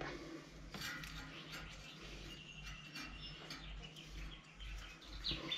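Faint handling sounds of vinyl electrical tape being peeled off the roll and wrapped around a cable end, with light crackles and small clicks.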